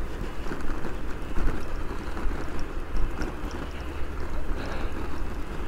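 Bicycle rolling over rough, bumpy asphalt: tyre rumble and the bike rattling, with wind on the microphone.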